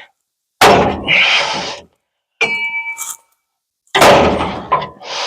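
Hammer blows on the truck's steel body panel, knocking out a dent: several loud metal clangs about a second apart, one ringing on with a clear tone.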